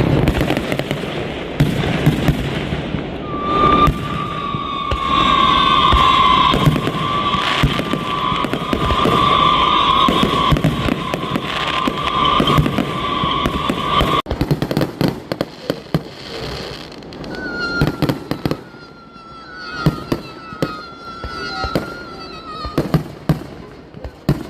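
Fireworks going off: dense crackling and popping with one long whistle running through the first half. After a sudden break come scattered sharp bangs and several short falling whistles.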